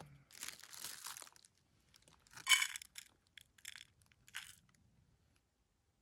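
A few short crunching, rustling noises, the loudest about two and a half seconds in, then smaller ones fading out.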